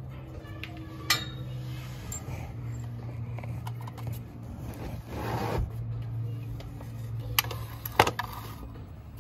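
Tools being handled against the car's metal underbody while a bracket is worked on: a few sharp metallic clicks, the loudest about eight seconds in, and a brief scraping rustle around the middle, over a steady low hum.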